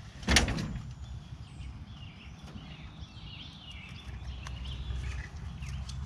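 A single sharp thump about a third of a second in, then birds chirping and warbling in the background over a low steady rumble, with a few faint clicks.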